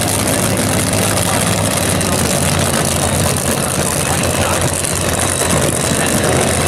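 Supercharged funny car engines running steadily and loudly at low speed, without a launch or full-throttle run.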